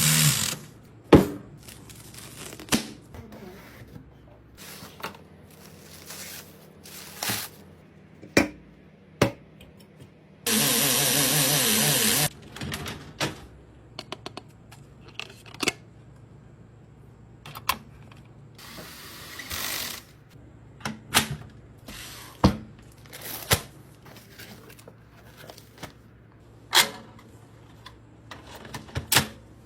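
Scattered clicks, taps and knocks of computer parts and screws being handled and fitted during a PC build, with one loud, steady burst of noise lasting nearly two seconds about ten seconds in.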